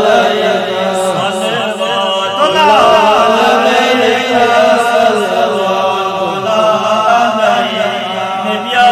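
A man's voice chanting a Kashmiri naat salaam, drawn out in long melodic phrases that bend up and down in pitch.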